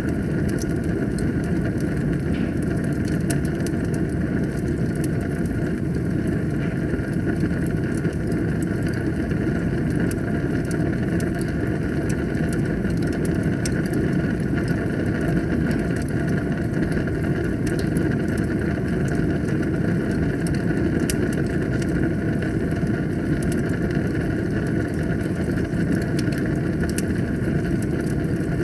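Wood fire burning in a fireplace: a steady low rush of flames with frequent small, sharp crackles and pops scattered irregularly throughout.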